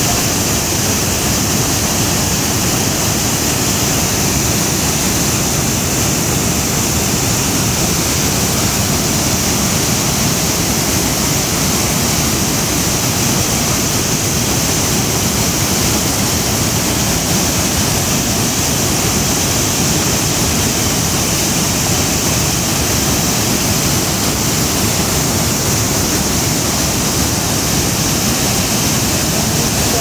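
A wide waterfall spilling over a stone weir into a churning pool: a loud, steady rush of falling water.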